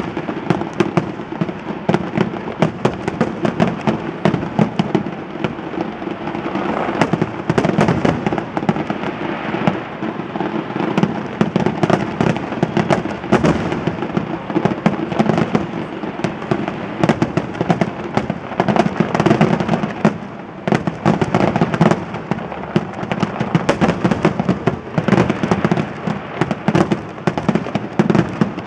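Fireworks display: a dense, unbroken barrage of aerial shells bursting, bang after bang with crackling in between, easing off only briefly about twenty seconds in.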